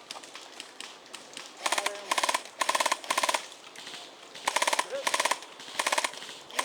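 Airsoft electric gun firing several short full-auto bursts, a rapid buzzing clatter of shots with brief pauses between bursts.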